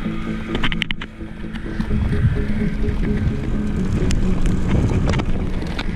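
Wind buffeting the microphone and tyre rumble from a bike coasting down a dirt trail, with a steady low hum running under it. A few sharp clicks and rattles come through, several in quick succession about half a second to a second in.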